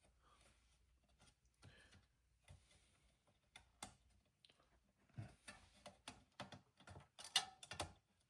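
Faint, scattered small clicks and taps from hands handling plastic cooler parts as a fan cable is worked under a fan clip. The clicks come more often in the second half.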